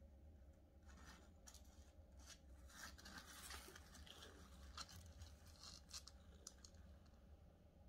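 Near silence, with faint scratchy rustles and short soft clicks scattered throughout, busiest in the middle: six-day-old kittens suckling on their mother and shifting on the cardboard of the box.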